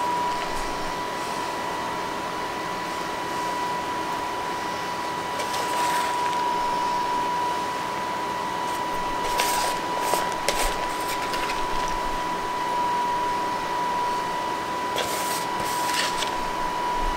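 A steady background hum with a constant high-pitched whine, and a few soft rustles as shredded cheese is scattered by hand over sauced burritos in a baking dish, about six, ten and fifteen seconds in.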